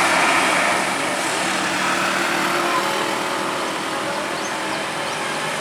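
Road traffic noise with a steady engine hum, with no horn sounding.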